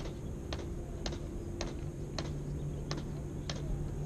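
Regular sharp ticks, a little under two a second, over a steady low hum.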